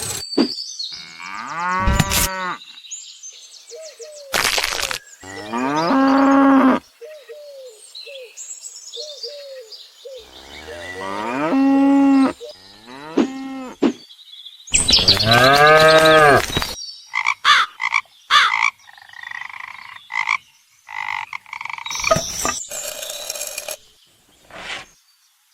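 A series of long, pitched animal calls, four loud ones each rising and falling in pitch, with shorter low calls and sharp clicks between them.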